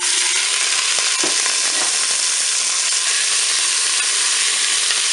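Beef meatballs frying in hot oil in the preheated bowl of a Cookeo multicooker on its browning setting: a loud, steady sizzle that starts suddenly as they go in.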